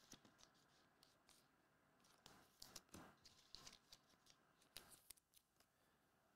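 Faint clicks and rustles of glossy Topps Chrome trading cards being flipped, slid and stacked by hand, busiest between about two and five seconds in.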